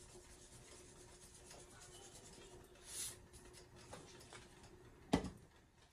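Seasoning shaken from a plastic shaker over a pan, a soft rustle of grains about three seconds in, then one sharp knock a little after five seconds. A faint steady hum runs underneath.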